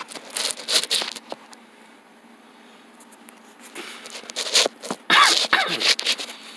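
Rustling and scraping handling noise in irregular bursts, with a short squeak about five seconds in.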